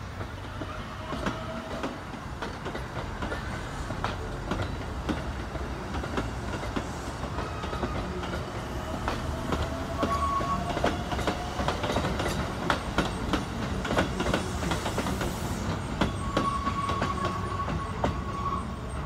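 Keikyu 600 series four-car electric train pulling slowly out of the depot, its wheels clicking over rail joints over a steady rumble. A thin rising whine comes in around the middle, and a thin steady high squeal near the end.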